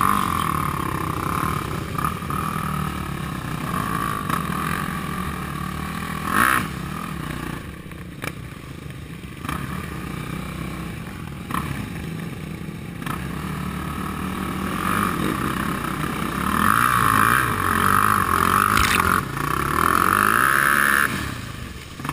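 Quad and dirt bike engines running, a steady low engine note throughout, getting louder for several seconds near the end.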